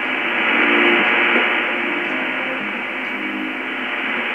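Shortwave AM broadcast from Africa No.1 on 9580 kHz, played through a Lowe HF-235 receiver: a steady hiss of band noise with the station's programme faint beneath it as a few held tones. The sound is muffled and narrow, with no treble.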